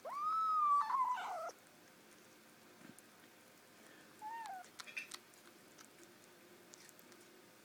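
A high whining animal cry, rising and then sliding down over about a second and a half, then a shorter falling cry about four seconds in, followed by a few faint clicks.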